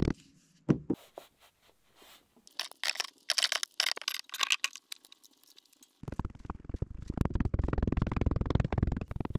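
Red casting sand spilling into a wooden moulding flask with a dry, crackly rustle, then from about six seconds in a fast run of dull thuds as the sand is rammed down with a hand tamper.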